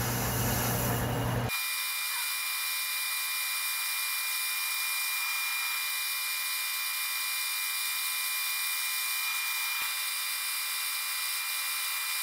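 Atlas metal lathe turning a chuck backplate, the cutting tool taking a pass to cut the register: a steady machine whine with several high steady tones. About a second and a half in, the low rumble drops out abruptly and only the high whine remains.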